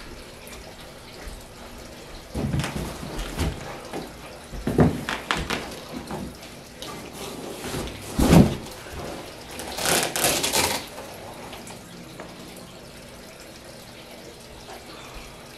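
Long cardboard shipping boxes of truck side steps being shifted and opened: scattered thumps, scrapes and rustles. The loudest is a heavy thump a little past the middle, followed by about a second of hissing scraping.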